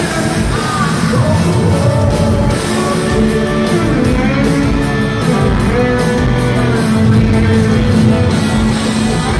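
Live rock band playing: a man singing into a microphone over electric guitar and drums.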